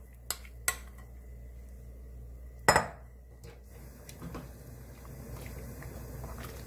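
A glass bowl and spoon clinking against a metal soup pot as seasoned dried radish greens are scraped into the boiling broth, with one sharp knock about three seconds in, then a wooden spoon stirring in the pot with a few soft clicks.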